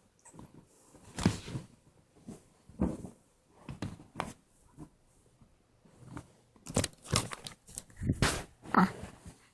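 A young child hiccuping: short, sudden hics every second or so, coming closer together near the end.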